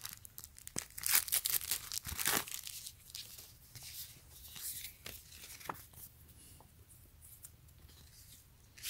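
Clear plastic bag crinkling and tearing as it is pulled open by hand, followed by the rustle of paper sheets being handled. The crinkling is densest in the first two or three seconds, then thins to a few faint rustles.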